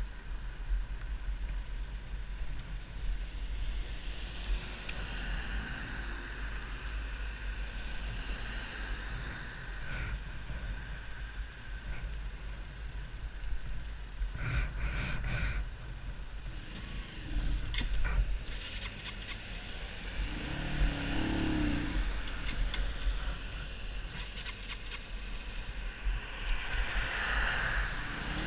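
Honda CBR125's small single-cylinder four-stroke engine at low revs under a constant low rumble. It bogs down and stalls when the rider tries to pull away in second gear, too high a gear for the 125 cc engine. Revs rise briefly twice, in the second half and near the end.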